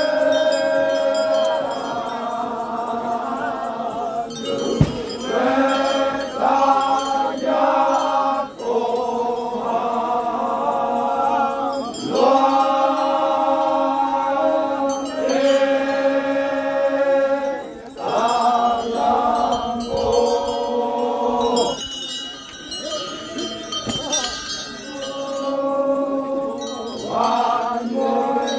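A group of Naga men chanting a traditional song together, singing long held notes in phrases of a few seconds with short breaks between them. A single sharp knock sounds about five seconds in.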